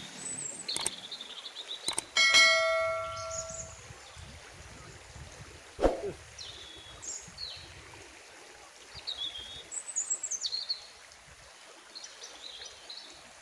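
Subscribe-button animation sound effects: mouse clicks, then a bright notification-bell ding ringing for about a second and a half, the loudest sound, with another sharp click near 6 seconds. Birds chirp in short calls through the rest.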